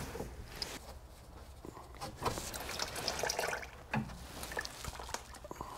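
Engine oil draining from a Toyota Prius's oil pan into a catch pan, a steady pouring splash. A sharp tool click at the start and another about four seconds in.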